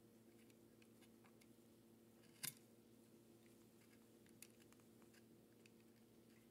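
Faint ticks and scraping clicks of a utility knife blade cutting into thin wooden roof strips, with one sharper click about two and a half seconds in and a smaller one near four and a half seconds, over a faint steady hum.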